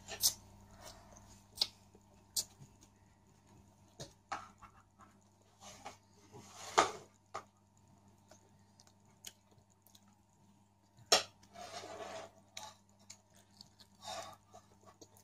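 Quiet, sparse eating sounds from a boiled artichoke: soft clicks and scrapes of chewing and handling the leaves, with a louder knock about seven seconds in.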